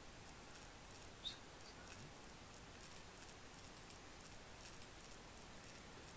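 Near silence: room tone with a few faint short clicks, the loudest about a second in.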